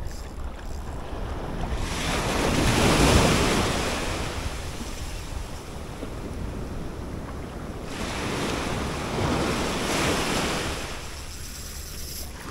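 Ocean surf breaking on a beach, two waves swelling and washing in a few seconds apart, with wind buffeting the microphone.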